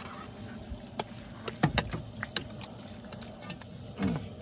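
A spoon scraping and clinking against a stainless steel bowl as minced raw fish is mixed: a scatter of short, sharp clicks and knocks, with the loudest near the end.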